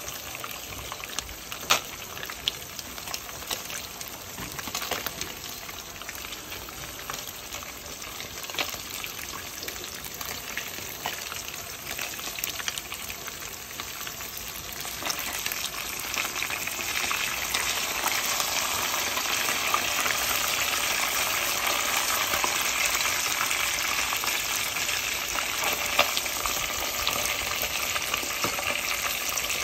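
Whitefish pieces deep-frying in hot oil in a deep pot: a steady crackling sizzle with scattered sharp pops of spattering oil, growing louder about halfway through.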